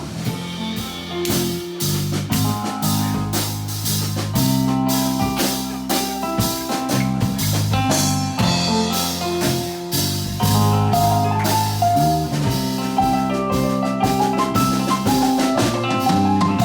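Live band playing an instrumental break: drum kit keeping a steady beat under guitar and bass, with no singing.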